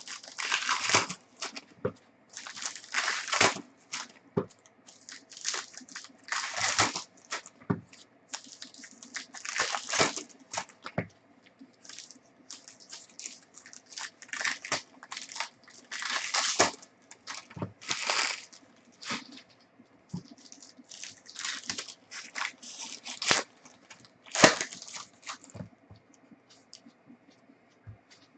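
Trading card pack wrappers being torn open and crinkled, with cards handled, in irregular bursts of tearing and rustling.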